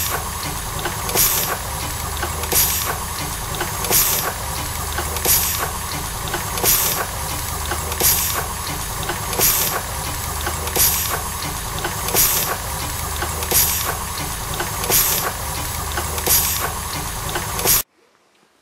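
Steam machinery sound effect: a steady mechanical drone with a burst of steam hiss about every second and a half, cutting off suddenly near the end.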